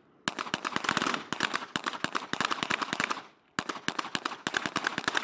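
Rapid small-arms gunfire on a shooting range: many sharp shots in quick succession, in two long strings with a short break about three seconds in.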